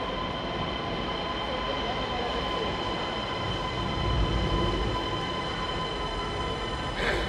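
A passenger train running, a steady rumble with an even high-pitched hum over it.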